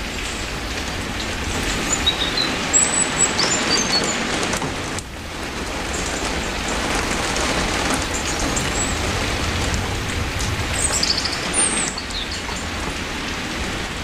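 Steady rain falling, an even hiss, with a few short, high bird chirps about two to four seconds in and again about eleven seconds in.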